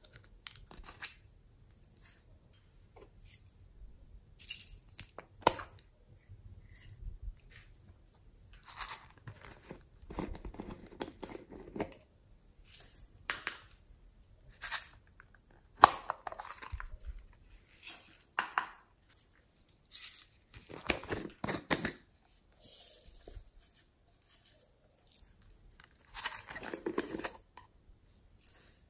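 Small plastic containers and packaging handled up close: intermittent crinkly tearing and rustling, with sharp plastic clicks, in short bursts separated by quiet gaps.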